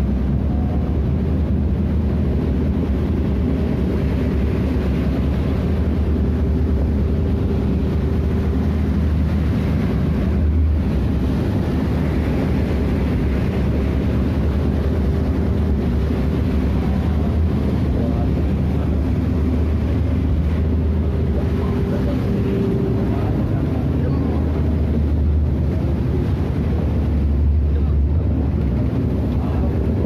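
Boat engine running steadily under way, a constant low drone, over the rush of the churning wake and spray against the hull.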